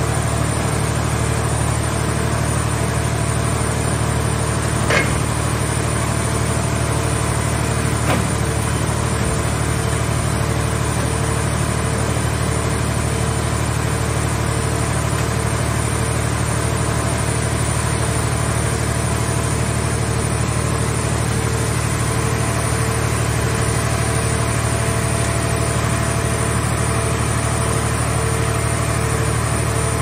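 Hydraulic car-scrap baler's power unit running with a steady low drone while its grab crane works. Two short metallic clanks come about five and eight seconds in, the first louder, as the grapple handles car scrap.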